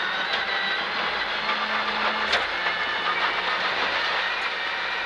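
Rally car at speed, heard from inside the cabin: a steady mix of engine and road/tyre noise, with a single sharp knock a little over two seconds in.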